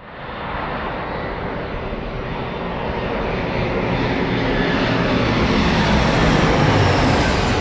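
Jet airliner engines passing close by, a steady rush that swells to its loudest near the end.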